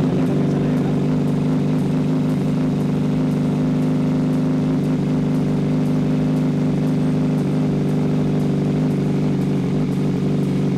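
Kawasaki Z900's inline-four engine, just started and idling steadily with no revving.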